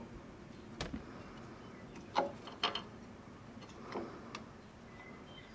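A handful of small metal clicks and clinks, about five, the loudest around two seconds in, as a drum brake's self-adjuster mechanism and its spring are handled and fitted together.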